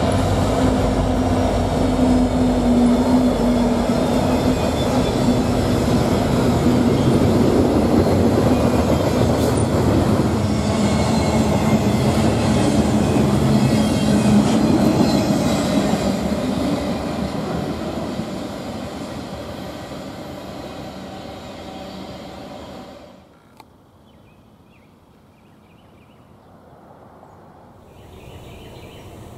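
Norfolk Southern freight train passing close by: EMD diesel-electric locomotives led by an SD70ACe, then the steady rumble and wheel noise of double-stack intermodal cars rolling past. The sound fades, then drops off abruptly about three-quarters of the way through to a faint background.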